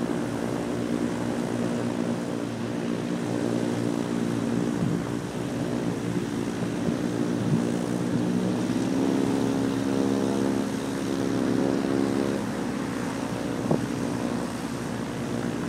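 Microlight aircraft's engine and propeller running steadily, a pitched hum that shifts a little in pitch about eight seconds in. A short click sounds near the end.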